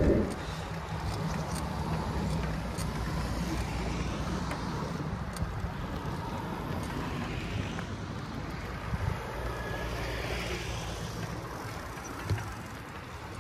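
A motor vehicle's engine running steadily: a low hum under outdoor background noise.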